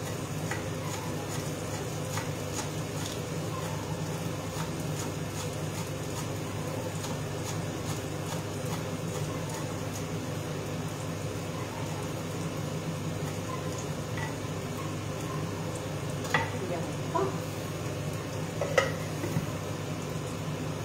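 Kitchen knife chopping parsley on a wooden cutting board: a run of light, quick taps over a steady hiss from the stove, with a few sharper knocks in the last few seconds.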